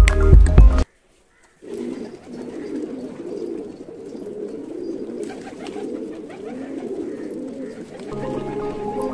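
Domestic pigeons cooing, many low wavering coos overlapping in a continuous chorus. Background music plays for about the first second, stops, and comes back near the end.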